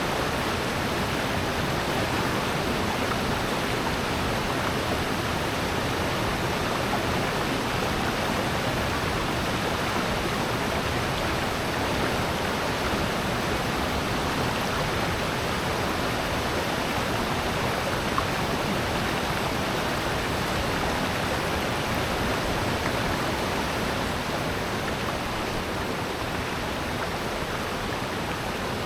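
Rushing water in a mountain gorge: a stream or small waterfall running with a steady, even rush.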